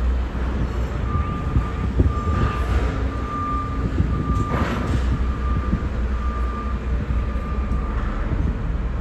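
Electronic warning beeps, one steady tone repeating about one and a half times a second, start about a second in and stop near the end, over a constant low rumble.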